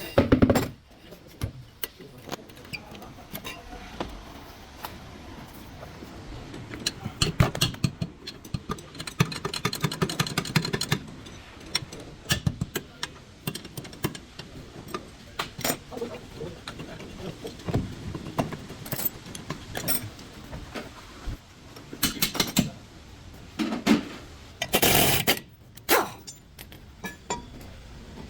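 Irregular metal clinks and knocks of hand tools and parts being handled, typical of work on a car's rear brake.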